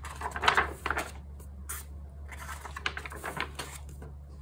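Large folded paper poster being unfolded and smoothed flat by hand: paper rustling and crackling in uneven bursts, loudest about half a second in, with lighter rustles later.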